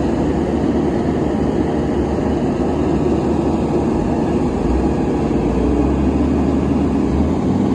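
Diesel engines of heavy machinery, a backhoe loader and a self-loading concrete mixer, running steadily with a low drone. The drone deepens and strengthens for a couple of seconds in the second half.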